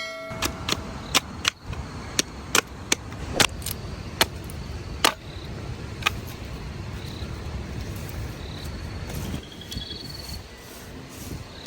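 Tent being pitched: a run of sharp clicks and knocks, about a dozen in the first five seconds and sparser after, over a low steady rush.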